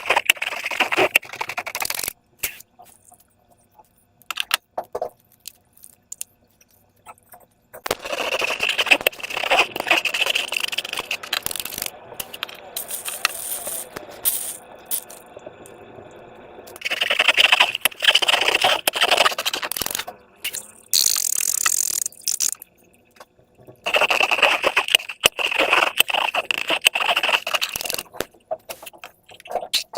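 Slime-making materials and balloons being handled by hand, giving crackly, scraping, rustling sounds that come in four spells with quieter pauses between them.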